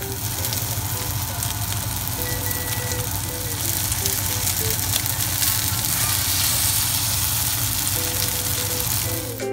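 Small minced-meat patties frying in a stainless steel skillet, with a steady sizzle and fine crackling spatter. Background music plays underneath.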